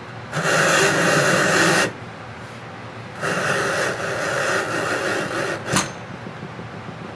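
13 oz saddle skirting leather strip being drawn through a bench-top leather splitter's blade, shaved thinner in two long rasping pulls, with a sharp snap near the end.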